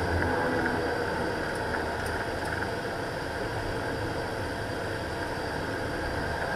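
Beechcraft King Air's twin PT6A turboprop engines running steadily at taxi power, heard from inside the cockpit.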